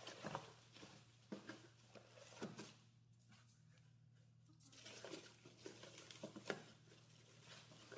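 Faint rustling and crinkling of plastic packs of fishing lures being handled in a cardboard box, with a few light clicks and taps. It pauses briefly in the middle, over a low steady hum.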